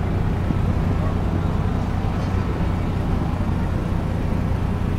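Boat engine running with a steady low drone, unchanging throughout.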